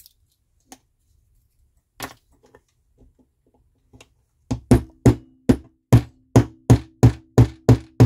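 Small hammer tapping a steel pin punch in quick, even strokes, about three a second, starting about four and a half seconds in, driving a pin into a Land Rover flip-key shell held in a pin fixture. Each strike gives a short metallic ring. Before the hammering come a few light clicks and knocks of parts being handled.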